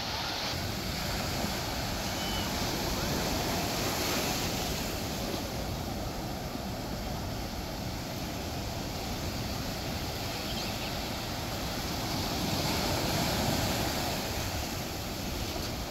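Ocean surf breaking and washing up a sandy beach, swelling louder about four seconds in and again near the end as waves roll in, with wind buffeting the microphone.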